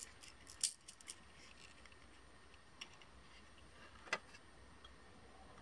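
A few light, sharp clicks of small crystal beads and their plastic storage box being handled, spaced a second or two apart, the sharpest about four seconds in, over a faint room hum.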